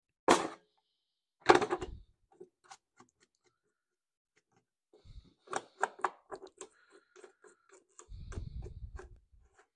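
A plastic engine air filter cover being set down onto the filter with two knocks, then its plastic retaining knobs screwed down by hand, giving a run of small quick clicks and a low rub near the end.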